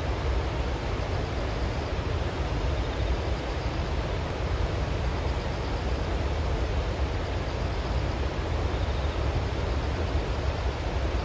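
Water discharging under the eight open spillway gates of a gated river dam and crashing into the river below: a steady, unbroken rushing with a strong deep rumble.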